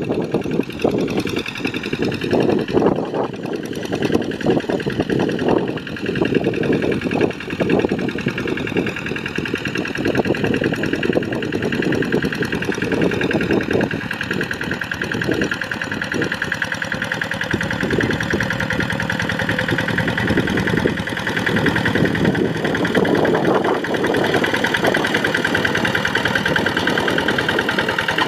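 Kubota RD85 single-cylinder diesel on a Quick G1000 Boxer two-wheel hand tractor, running continuously with a rapid knocking beat while it ploughs a rice paddy. Its level rises and falls through the first half, then it runs steadier.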